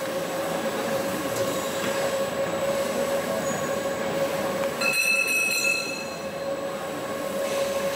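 An automatic pipe flange welding machine running: a steady hum over a hissing noise, with a brief higher whine about five seconds in.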